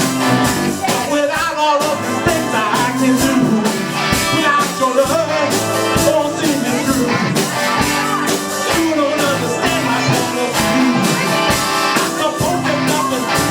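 Live rock band playing, with a singer over guitar and drums.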